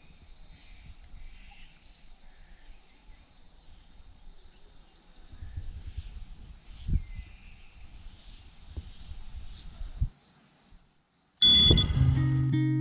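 Insects trilling, a steady high-pitched chirring that pulses rapidly, over a low rumble with a thump about seven seconds in. It cuts off at about ten seconds, and near the end music starts with a loud hit and plucked guitar notes.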